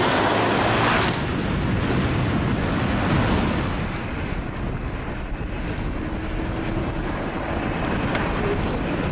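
Land Rover Discovery 300Tdi diesels driving through water: a loud rush of splashing spray for about the first second, then a steady rumble of engine and wind noise.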